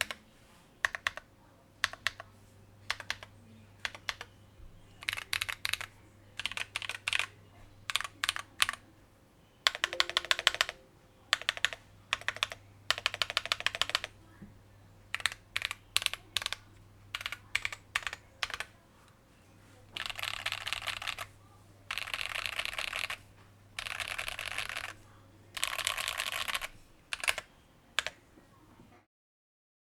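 Idobao ID67 mechanical keyboard with lubed Akko CS Ocean Blue switches being typed on: single keystrokes and short runs of keys, then, about two-thirds in, four bursts of rapid keystrokes of about a second and a half each. A faint low hum sits underneath.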